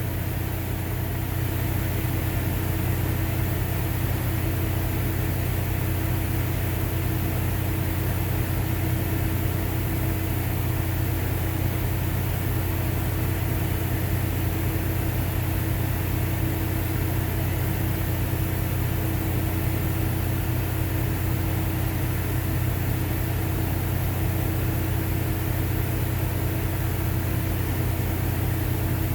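Steady, unchanging low machine hum with one constant higher tone, as from a motor or engine running.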